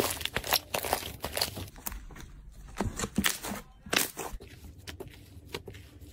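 Slime being squeezed and worked by hand, giving a run of quick crackling clicks and pops, dense for the first two seconds and then more spaced out.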